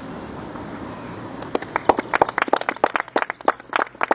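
A small audience begins clapping about a second and a half in, with uneven, separate hand claps that keep going.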